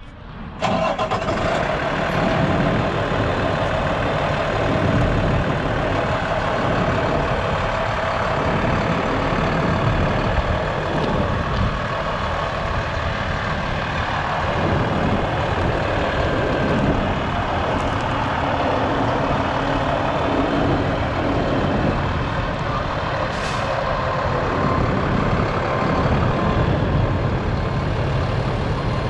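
Freightliner M2 service truck's diesel engine running steadily at idle.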